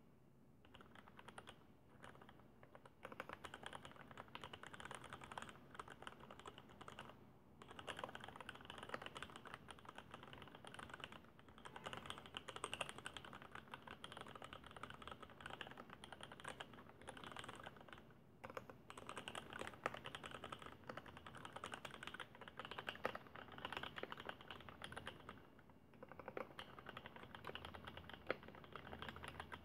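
Continuous typing on a custom keyboard with 55g vintage Cherry MX Black linear switches in an acrylic case: a quiet, steady patter of keystrokes, broken by a few brief pauses.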